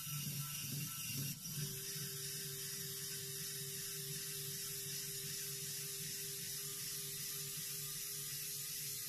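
Small DC gear motor of a 3D-printed filament guillotine running with a ratcheting gear rattle as it works the blade to cut through PLA filament. A click comes about a second and a half in, and after it a steady tone carries on.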